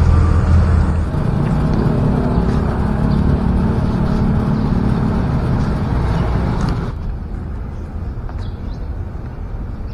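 Outdoor street noise with a steady rumble of road traffic, which drops abruptly about seven seconds in to quieter ambience with a few faint bird chirps.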